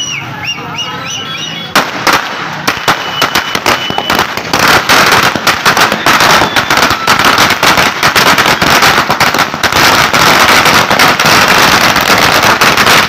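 A long chain of firecrackers laid along the road is lit and goes off in a rapid, continuous string of cracks starting about two seconds in, growing denser and louder after about four seconds.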